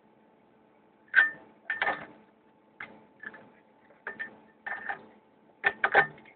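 A series of short, sharp knocks and clatters in uneven groups, beginning about a second in, with a loud double knock near the end.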